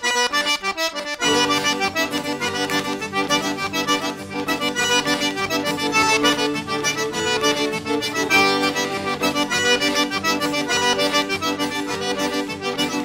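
Instrumental background music, a dense layer of held notes changing often, with low notes joining about a second in.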